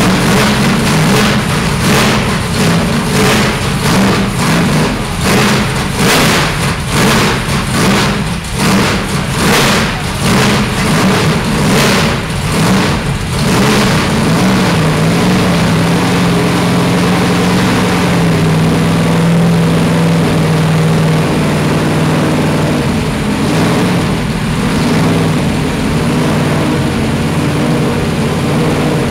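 Loud Mopar V8 Hemi race-car engine revved in a quick string of short throttle blips for about the first half, then settling into a steady, even run.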